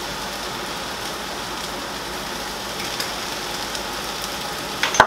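Rabbit meat and vegetables frying in a pan over a gas flame, a steady sizzle. A couple of sharp knocks near the end.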